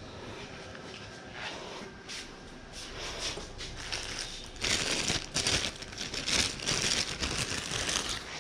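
Packaging crinkling and rustling as hands rummage for the next bolt, louder over the second half.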